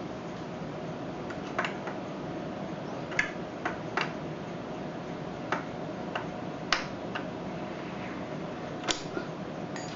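Scattered sharp clicks and taps of metal lock parts being handled while a knob lock is taken apart, about a dozen at irregular intervals over a steady background hum.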